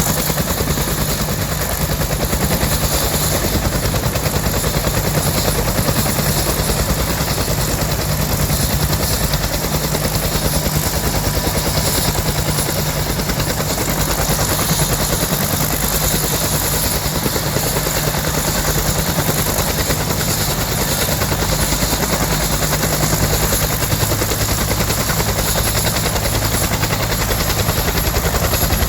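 Bell UH-1D Huey helicopter running, its two-blade main rotor turning at speed: a loud, steady, rapid rotor beat over the whine of its T53 turboshaft engine.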